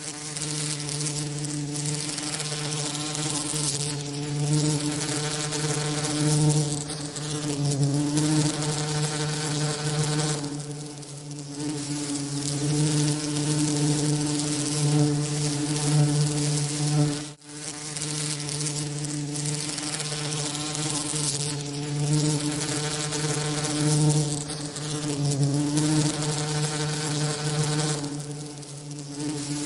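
Bees buzzing with their wings: a steady drone pitched around 150 Hz with a stack of overtones over a hiss, swelling and easing every few seconds. The buzz drops out for a split second about 17 seconds in.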